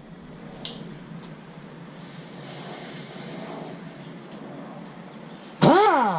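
Pneumatic wrench run off an air compressor, briefly triggered near the end: a short whine that spins up and falls away. Before it, a faint steady hiss of air.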